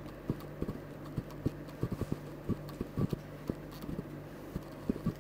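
Light, irregular taps, about three or four a second: fingertips dabbing liquid foundation onto the face.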